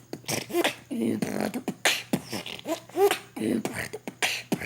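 Human beatboxing: a rapid, irregular run of vocal kick, snare and hi-hat-like mouth percussion mixed with short pitched, bending voice sounds.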